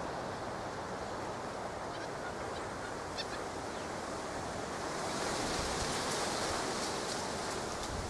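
Steady trickle of water from a garden tap into a shallow rock pool, growing louder and hissier about five seconds in. A few faint short high chirps come around three seconds in.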